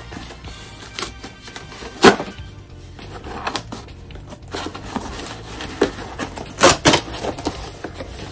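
Background music under the crackle and rips of a shipping package being torn open by hand, with sharp bursts about two seconds in and a pair near the end.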